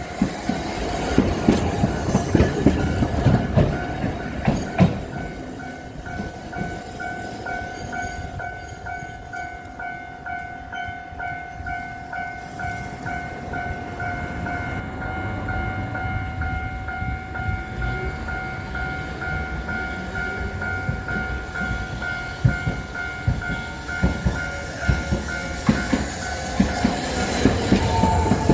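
Japanese level-crossing warning bell ringing its repeating 'kan-kan' alarm, with the rumble and wheel clicks of a tram on the rails, loudest near the start and again near the end.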